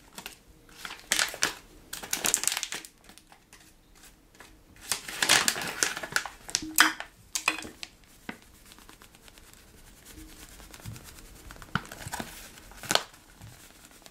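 A packet of ground black pepper crinkling and rustling in several short bursts as it is handled and shaken out.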